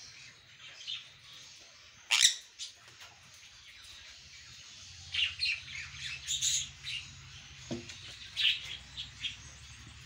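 Caged parrots in an aviary calling: scattered high chirps and sharp squawks, the loudest one about two seconds in, with bunches of calls around the middle and again near the end.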